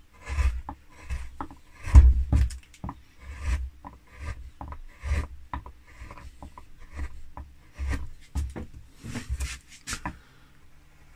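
Carving chisel shaving cuts in linden wood: a run of short scraping strokes, about two a second, the loudest about two seconds in.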